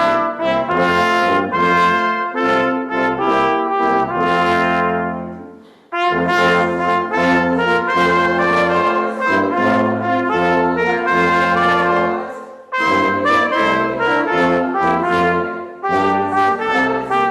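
Instrumental music in slow, sustained chords, played in phrases with short breaks about six and thirteen seconds in.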